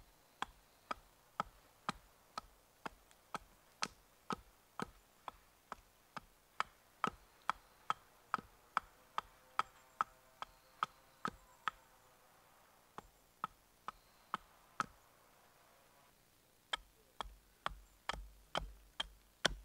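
Hatchet chopping into wood on a log, shaping a pointed wooden stake: sharp strokes about two a second, thinning out after about twelve seconds. Near the end comes a quicker run of strokes with low thuds.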